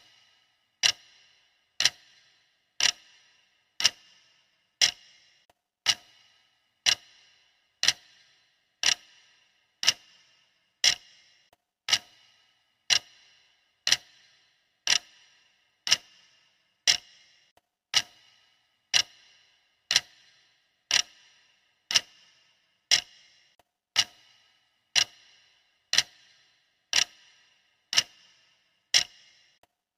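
Countdown timer's clock ticking, one sharp tick a second with a brief ring, steady throughout.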